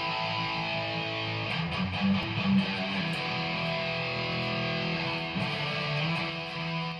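Outro music led by guitar, with sustained strummed chords.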